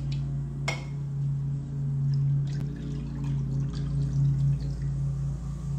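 Ginger beer being poured into a copper cup over ice, under a steady low hum, with one sharp click about a second in.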